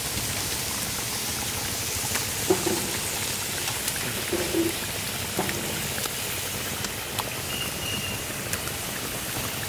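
Mustard-marinated hilsa fish pieces frying in hot mustard oil: a steady sizzling hiss with scattered crackles and pops.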